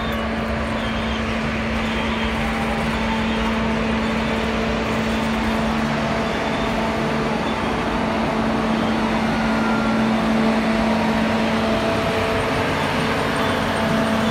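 Freight train's boxcars rolling past close by: a steady rumble of steel wheels on rails, growing slightly louder about halfway through, with a steady low hum running under it.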